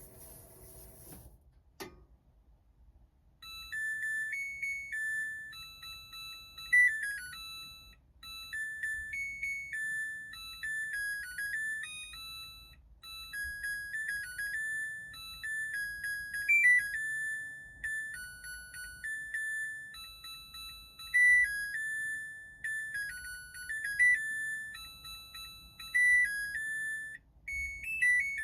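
A Samsung washing machine's electronic beeper playing its long end-of-cycle tune, a melody of clear beeping notes, signalling that the programme has finished. Before the tune, a low machine hum stops about a second in and a single click follows.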